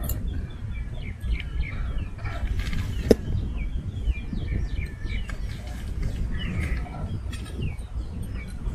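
Small birds chirping repeatedly over a steady low rumble, with one sharp knock about three seconds in.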